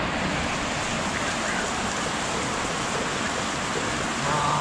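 Steady, even hiss of rain and muddy runoff water flowing through grass.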